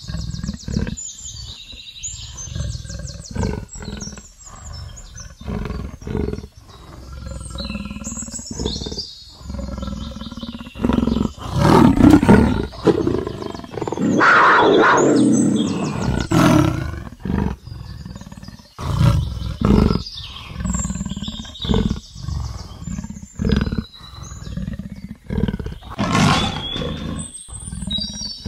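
Leopard roaring: a series of rough, rasping calls, the loudest and longest about 12 and 15 seconds in.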